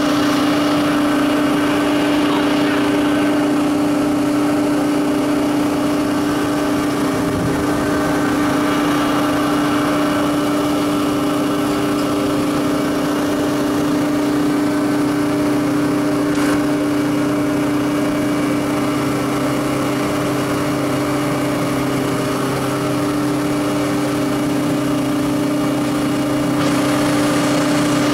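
Electric motors and blower fan of a biomass sawdust burner running steadily: a constant machine hum with one strong mid-pitched tone and several fainter higher tones over it.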